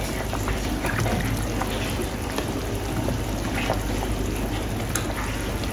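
A pot of tomato broth bubbling at a boil, with mushrooms slid off a wooden board splashing into it a few times.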